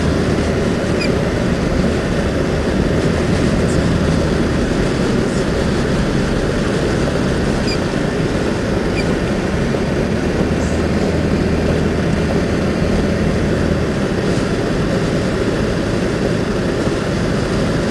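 A van driving steadily on a snowy road: a continuous low engine drone mixed with tyre and road noise.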